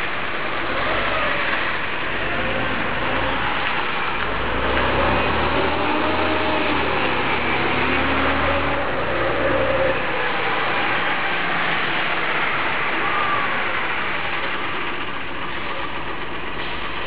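Volvo Olympian 11 m tri-axle double-decker bus driving past, its Volvo D10A diesel engine loudest as it goes by about halfway through, with engine tones rising and falling. Steady road traffic noise throughout.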